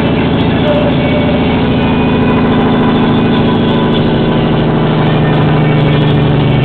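Peterbilt diesel's jake brake (engine compression brake) heard loud and steady from inside the cab, slowing the truck and drowning out the cab radio.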